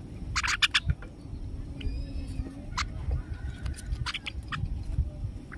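Common mynas calling: harsh clicking squawks in short clusters, three times, with a few thin whistles between, over a low background rumble.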